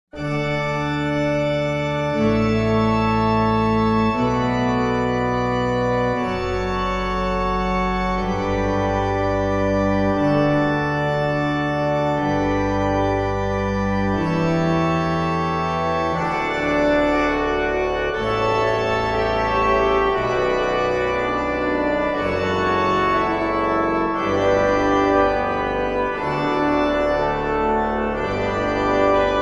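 Background music of held organ-like keyboard chords over a bass line, the chords changing about every two seconds and growing busier from about halfway.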